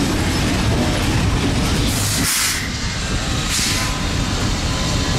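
Union Pacific passenger cars rolling past at track speed, their steel wheels rumbling steadily on the rails. Two brief hisses come about two seconds and three and a half seconds in.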